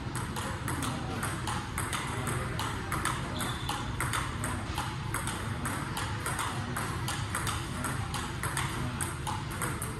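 Table tennis ball clicking off the table and rubber paddles in a rally, several sharp clicks a second, over a steady low hum.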